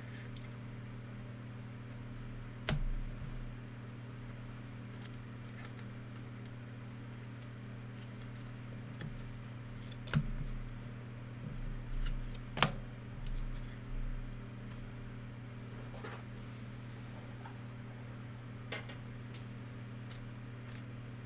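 Trading card box and packs being handled and opened: scattered sharp clicks and knocks, most of them a little past the middle, over a steady low electrical hum.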